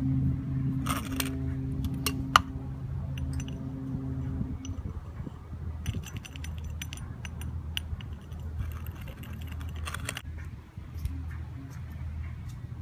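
Light clicks and taps of a thin tool against a small glass sand-art bottle as coloured sand is packed inside, with quick runs of ticking about six seconds and nine seconds in, over a low steady hum.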